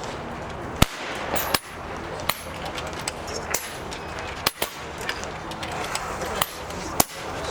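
PCP air rifles firing one after another along a benchrest line, each shot a sharp crack with no rhythm between them; the loudest shots come about a second in and near the end.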